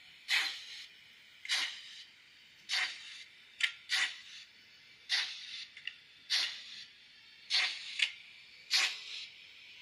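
Sound module of a Minitrix N-scale Prussian P8 steam locomotive model playing steam-exhaust chuffs: a hissing chuff about every 1.2 seconds in a slow, even beat, with a short sharp click about a third of the way in.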